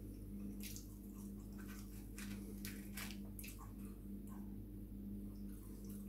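Quiet eating sounds: soft clicks and crackles as chip-shop chips are picked up off their paper wrapping and dipped into a tub of curry sauce, over a steady low electrical hum.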